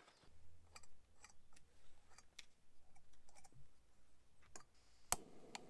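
Light metallic clicks and ticks of a backpacking canister stove being handled and assembled on its gas canister, with one sharper click about five seconds in.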